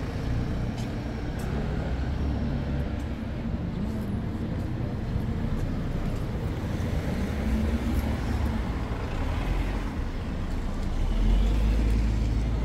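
Street traffic: cars and other vehicles running past in a steady low rumble, which swells about ten seconds in as a vehicle passes close.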